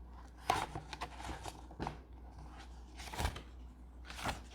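A few short rustles and taps from handling a picture book, about four in all, as its pages are turned.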